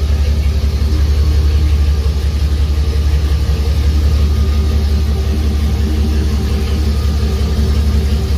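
Vehicle engine idling steadily with the hood open, a low, even rumble.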